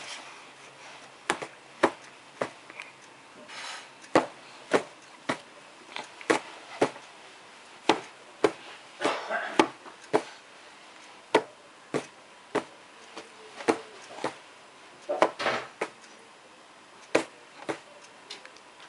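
Sharp clicks or taps, roughly one a second at an uneven pace, with a few brief softer noisy patches between them.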